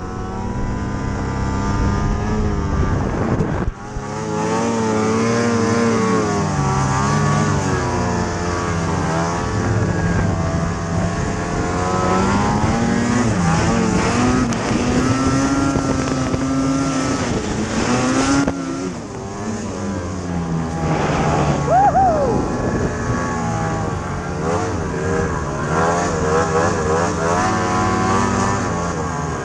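Ski-Doo snowmobile engine revving up and down as the sled powers through deep snow, its pitch rising and falling again and again, with a short drop in loudness about four seconds in.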